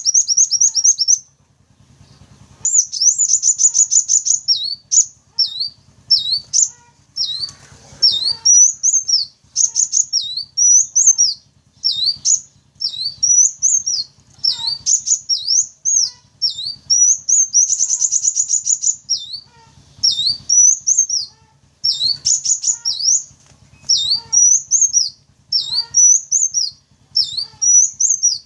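Sunbird song played as a lure call: high, fast trills alternating with runs of quick down-and-up sweeping notes, repeated in bursts with short pauses.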